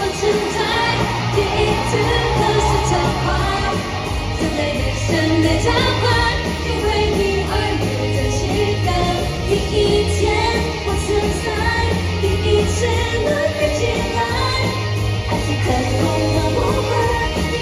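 K-pop girl group singing live into microphones over a loud pop backing track with a steady bass beat, heard through the arena's sound system from the audience.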